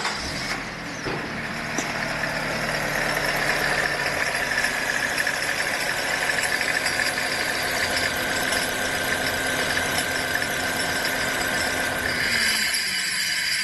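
Nissan Tiida's four-cylinder engine running, with a harsh, noisy whirr from the alternator pulley over the engine's low hum. This abnormal noise is the sign of a failing one-way (overrunning clutch) bearing in the alternator pulley. Both wind down about twelve seconds in.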